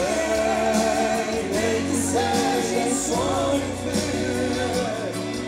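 Live sertanejo music: two male singers holding long sung notes over a band with bass guitar.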